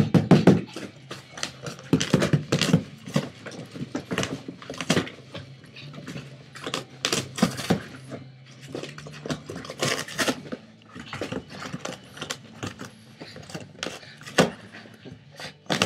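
A Boston Terrier tearing and chewing at a cardboard box: irregular ripping, crunching and rustling of cardboard in uneven bursts.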